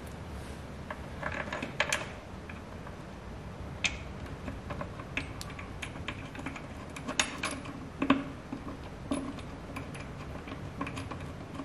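Bolts being fitted and started by hand into a tractor engine's front cover, with scattered irregular metal clicks and taps and a few louder knocks.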